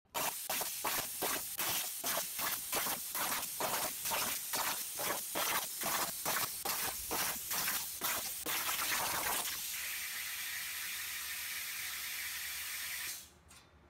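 CNC plasma torch cutting steel plate over a water table: a hissing, spattering cut that pulses about two to three times a second. About nine seconds in it gives way to a steady hiss, which stops shortly before the end.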